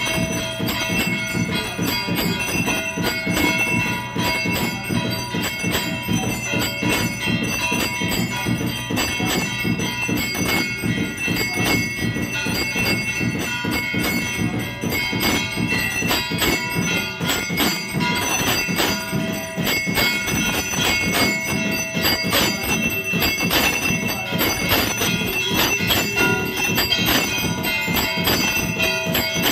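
Temple bells rung rapidly and without pause during aarti, a dense clangour of strikes over several steady ringing tones.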